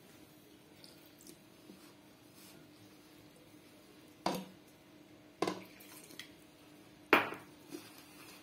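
Hand mixing rice flour and water into dough in a bowl, with soft handling sounds. Three sharp knocks come in the second half, the last the loudest.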